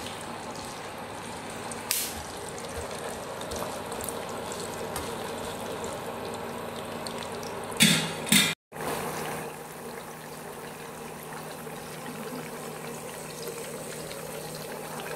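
Taro cubes deep-frying in hot oil in a wok, a steady sizzle. Two short clatters break in, about two seconds in and just before eight seconds in.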